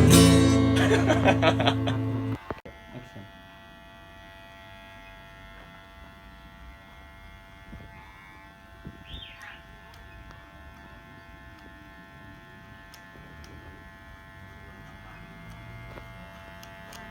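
Music cuts off about two seconds in, then a Wimark electric hair clipper runs with a steady buzz.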